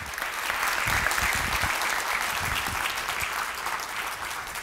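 Audience applauding, building over the first second and then slowly easing off.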